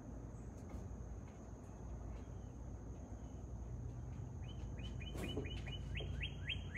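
Near the end a bird sings a quick run of downward-sliding chirps, about five a second. A brief knock sounds just after the run begins. Underneath are a steady low rumble and a thin, steady high tone.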